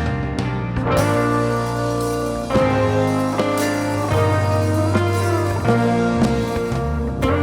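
Guitar-led music with a steady bass line, chords changing about every second.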